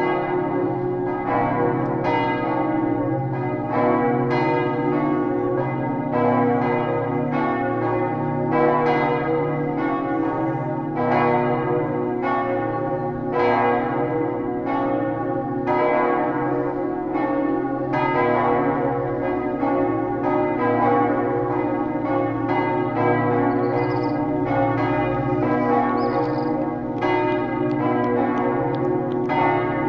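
Church bells of the Lourdes basilica ringing for mass. Several bells strike over and over in a continuous peal, their tones overlapping and humming on between strokes.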